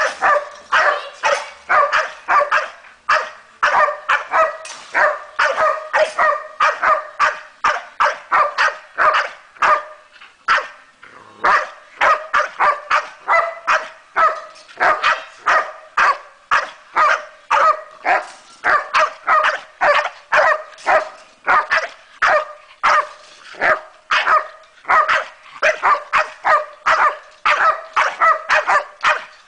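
A 13-month-old Staffordshire Bull Terrier barking over and over, about two or three barks a second, with a short pause about ten seconds in.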